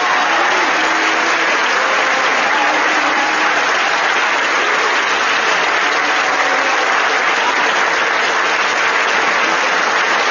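Audience applauding steadily in a large hall, a long ovation for a departing teacher standing to be recognised.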